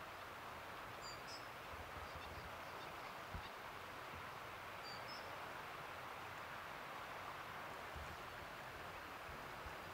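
Creek rapids rushing steadily, with a few short bird chirps over the water noise.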